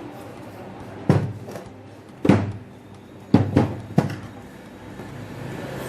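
Five sharp knocks from a tool or metal part being struck while a DeWalt angle grinder is taken apart: three about a second apart, then the last three closer together.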